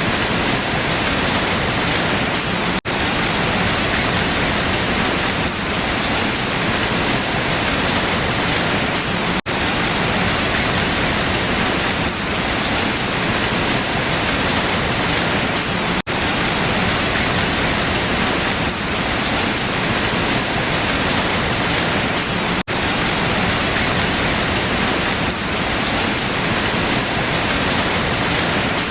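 Steady, dense rain falling on leaves, an even hiss with no single drops standing out. There is a very brief dropout about every six and a half seconds.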